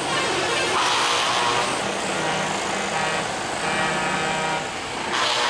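Heavy trucks driving past one after another in a convoy, their diesel engines running as they pull away, with the exhaust sound swelling as each one passes.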